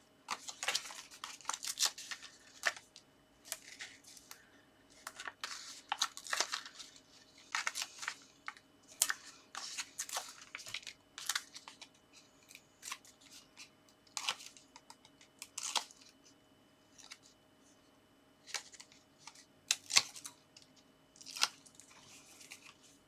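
Paper and card pieces being handled at a craft table: irregular short rustles and scrapes, some sharper than others, with brief quiet gaps.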